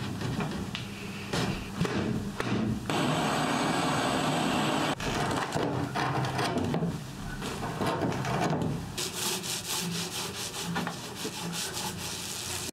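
Hand woodworking on wood: rubbing, scraping and sawing strokes that change every few seconds, with a steady stretch of noise about three seconds in and fast, rasping strokes near the end.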